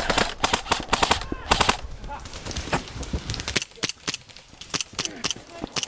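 Airsoft guns firing: a rapid full-auto burst for about the first second and a half, then scattered single shots and short bursts.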